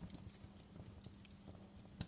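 Wood fire crackling: faint, irregular pops and snaps over a low steady bed of sound.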